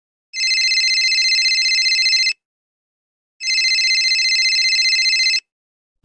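Telephone ringing sound effect: two rings of about two seconds each, a second apart, each a rapid trilling of high tones.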